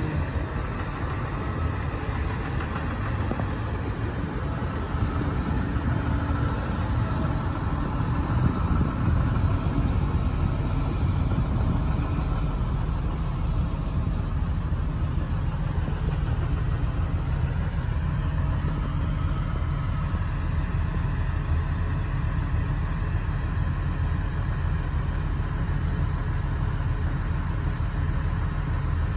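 Fendt 936 Vario tractor's six-cylinder diesel engine running steadily at idle.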